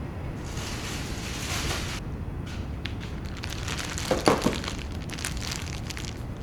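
Kitchen handling sounds of breakfast being prepared: a short burst of rustling, then scattered small clicks and one louder knock about four seconds in.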